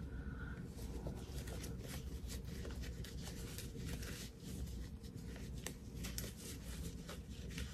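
Soft rustling and scratching of fabric being handled as a small zipper bag is turned right side out through its opening, with many small irregular ticks throughout.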